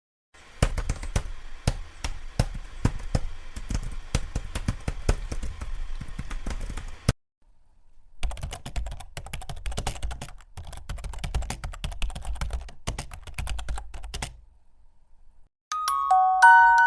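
Rapid, irregular clicking like typing on a computer keyboard, in two runs of about six seconds each with a one-second break between them: an added sound effect. Near the end, a glockenspiel-like tune begins.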